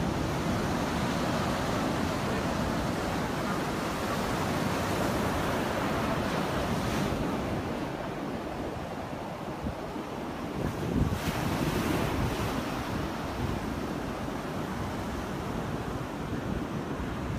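Sea surf breaking and washing up a sandy beach, a steady rushing sound, with wind buffeting the microphone. About two-thirds of the way in there is a louder, rougher rush of wind noise.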